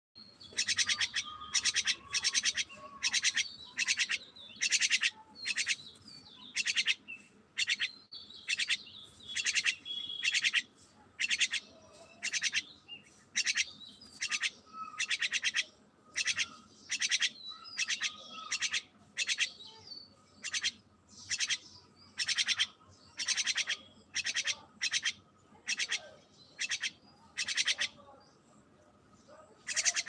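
Jungle myna calling from a hand perch: a steady run of short, harsh, raspy calls, about two a second, with a brief lull near the end.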